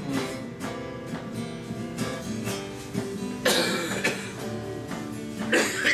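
Acoustic guitar being strummed and picked, its chords ringing, with two louder, noisier sounds about three and a half and five and a half seconds in.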